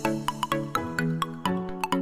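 Background music: an electronic track of quick, short high notes over lower held notes that change several times a second.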